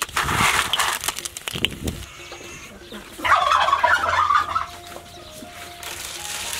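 Poultry calling: a turkey gobbles for about a second and a half, starting about three seconds in, among chickens clucking. The first two seconds hold a run of clicks and rustling.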